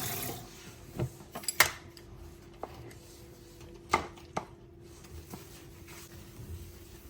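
Kitchen dishes and utensils clinking and knocking as they are handled: about half a dozen separate sharp knocks spread over several seconds, over a faint steady hum. Running tap water stops just at the start.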